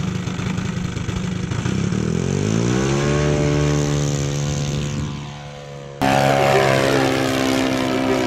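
Engine of a yellow Piper Cub-style RC model airplane, first at low throttle, then opening up with a rising pitch for the takeoff run and holding steady. About six seconds in the sound cuts abruptly to the engine running louder and steady at a higher pitch as the model climbs.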